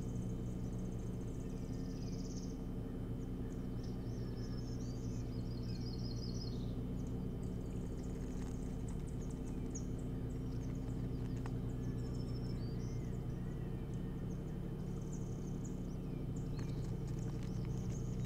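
Scattered high-pitched bird chirps and peeps, with a quick run of repeated chirps a few seconds in, over a steady low hum.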